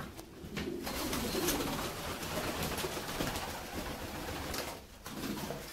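Pomeranian pouter pigeons cooing softly, faint low coos over a steady background hiss.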